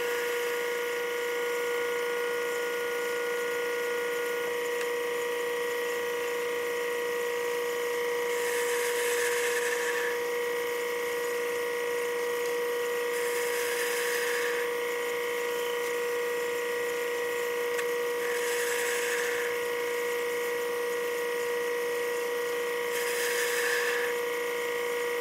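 Taig micro lathe running, its motor giving a steady whine while the chuck spins a graphite rod. Four brief bursts of hiss come about every five seconds, as the tool bit takes light facing cuts off the graphite piston's end.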